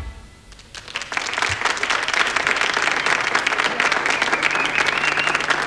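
A last chord dies away, and the audience starts applauding about a second in, then carries on steadily.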